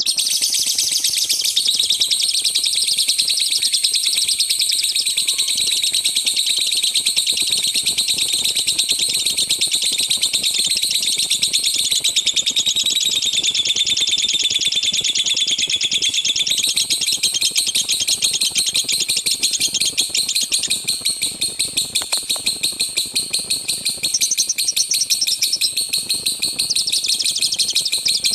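Lovebird singing its long 'tembakan' song: a loud, unbroken run of very rapid, high-pitched chattering notes that shifts its pattern now and then without pausing.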